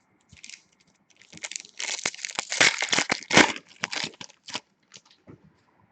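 Foil trading-card pack wrapper being torn open and crinkled by hand, a dense run of crackling and tearing that is loudest in the middle and thins to a few small crinkles near the end.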